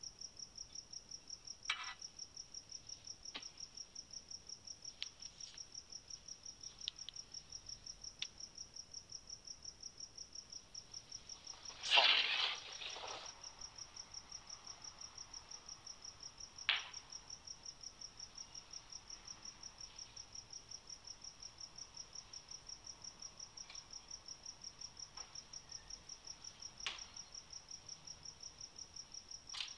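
Steady high-pitched insect-like chirping, pulsing evenly about four times a second. A few soft knocks are heard over it, and a louder rustling clatter comes about twelve seconds in.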